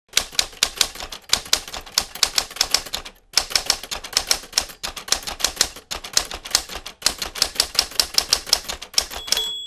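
Manual typewriter keys clacking rapidly, about six strokes a second, in three runs with brief pauses between them. Near the end there is a single ringing ding of the carriage bell.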